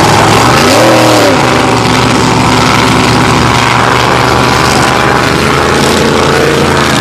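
V8 engine of a Grand Prix class racing boat running flat out, its revs briefly rising and falling about a second in.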